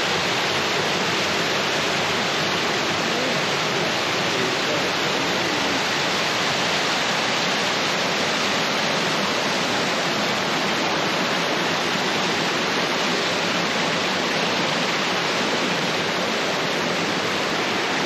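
Minnehaha Falls rushing steadily as whitewater pours down stepped rock ledges. The falls are running full after a heavy rainstorm the day before.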